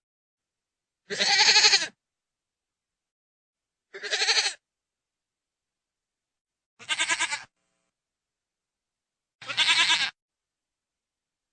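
A goat bleating four times, each call under a second long and wavering, with dead silence between the calls.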